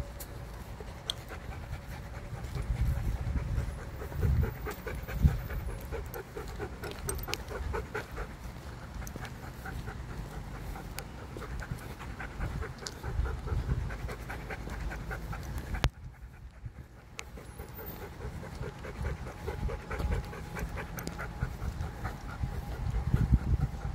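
Dog panting quickly and steadily while walking on a leash, with low rumbling on the microphone; the sound drops out for about a second about two-thirds of the way through.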